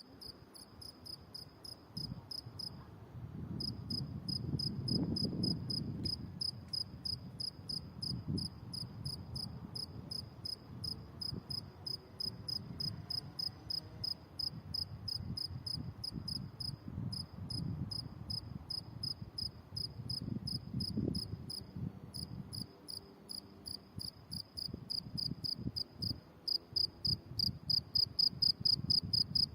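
Field cricket chirping: a steady run of short, evenly spaced high-pitched pulses, breaking off briefly twice and growing louder near the end, over a faint low rumble.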